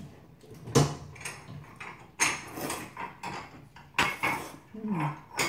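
Noodles being slurped from chopsticks in several short noisy sucks about a second or two apart, with light clinks of chopsticks against the bowl.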